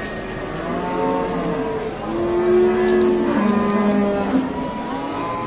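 Cattle mooing: several long moos follow one another and partly overlap, with a lower one about halfway through.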